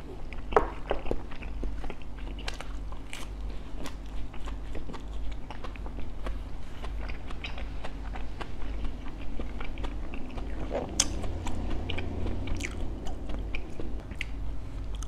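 Close-up chewing and crunching of crispy fried bánh khọt (Vietnamese mini rice pancakes), with many short crunches as each bite is chewed.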